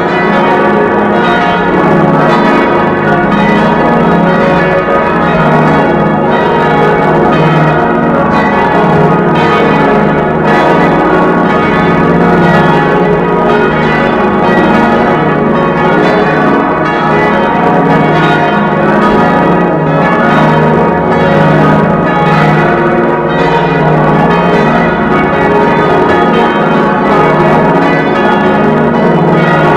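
Church bells of St. Peter's ringing continuously, many loud bell strokes overlapping so that their tones blend into one unbroken ring.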